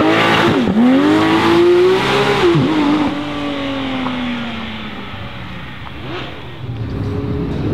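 Porsche 911 GT3's flat-six accelerating away. The revs climb, drop at a gear change about a second in and again between two and three seconds in, then the sound fades as the car pulls away. Another car's engine rises near the end.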